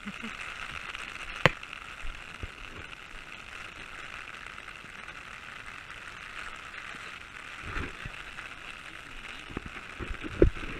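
Steady hiss of rain pattering on an umbrella close overhead, with one sharp click about a second and a half in and a few dull knocks near the end.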